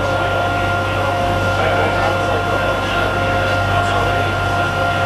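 Friendship water-taxi boat's engine running steadily underway: a constant low drone with a steady whine above it.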